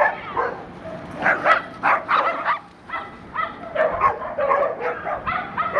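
Dogs barking repeatedly, short barks about two to three a second with a brief lull near the middle: excited barking at a new dog just let into the group.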